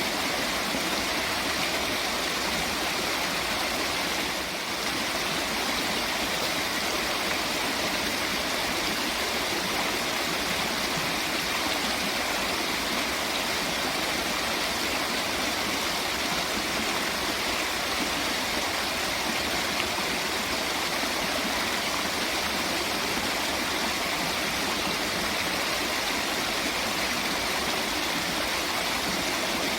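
Steady rushing water, like a stream or waterfall, with an even hiss and no breaks.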